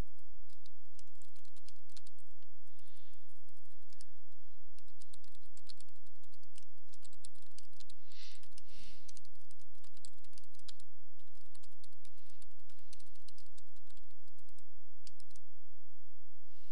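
Computer keyboard typing: irregular runs of quick key clicks, over a steady low hum.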